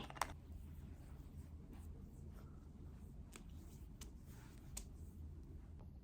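Faint handling sounds in a quiet small room: one sharp click just after the start, then a few light ticks and soft rustles over a steady low hum.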